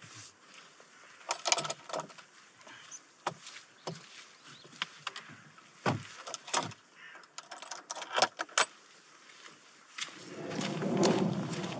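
Scattered clicks and knocks of a wooden field gate and its latch being opened and swung shut as a hiker with trekking poles passes through, with the poles tapping and footsteps on wet grass. Near the end a dense rustling rumble rises close to the microphone.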